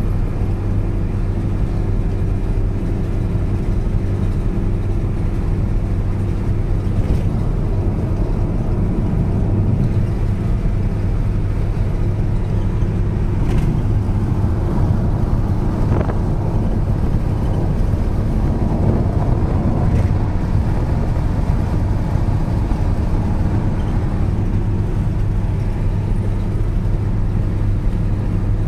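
Motorhome driving at motorway speed, heard from inside the cab: a steady engine and road drone with a low hum, and a few faint clicks along the way.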